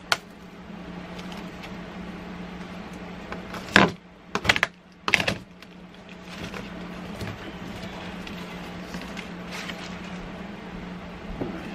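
Cardboard shipping box being opened: packing tape slit with a knife and the cardboard flaps pulled back, with three sharp tearing scrapes about four to five seconds in and fainter cardboard rustles after, over a steady low hum.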